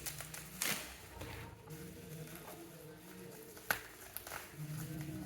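Packaging being handled and unwrapped, a light rustle with scattered ticks and two sharp clicks, one near the start and one about two-thirds through.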